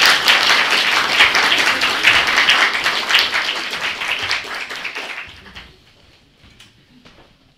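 Audience applauding, dying away after about five seconds.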